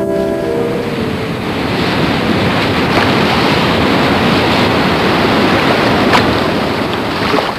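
Sea waves washing on the shore with wind, a steady rushing noise.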